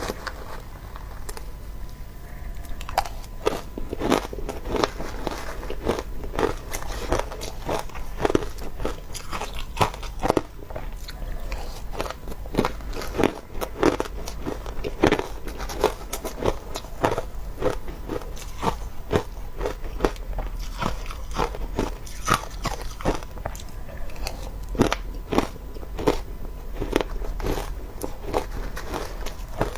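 Close-miked biting and chewing of crunchy shaved ice, crisp irregular crunches several times a second, starting about three seconds in and running on.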